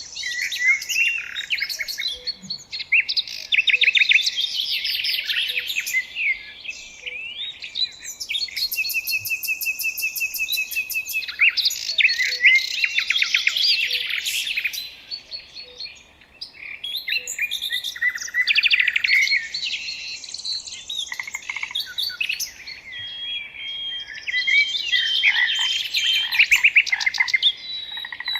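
Several songbirds singing at once in a dense, overlapping chorus of high whistles, trills and chirps, with brief lulls partway through.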